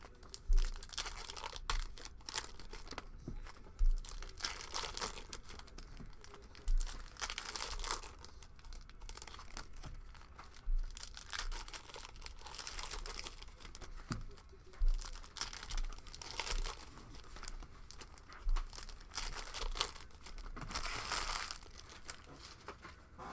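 Trading card packs being torn open, their wrappers crinkling and crumpling in repeated bursts, with light knocks from handling the box and cards on the table.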